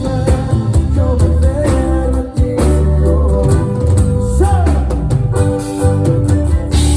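Live band playing a song at rehearsal, with bass, guitar and drums and a voice singing.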